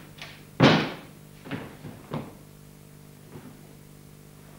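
A sharp knock just over half a second in, then a few lighter knocks, over a steady low hum.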